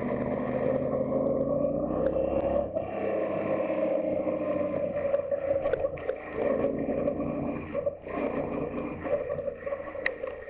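Yamaha Ténéré 700's 689cc CP2 parallel-twin engine running at low speed on a gravel track, its note shifting about three seconds in and again near eight seconds as the throttle changes. A few sharp clicks, from stones or the bike, come through near the middle and near the end.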